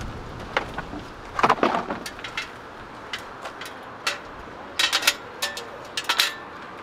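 Camp gear being handled and set out on a folding wooden table and storage box: a run of knocks, clacks and rattles in a few clusters, about one and a half seconds in and again near the end.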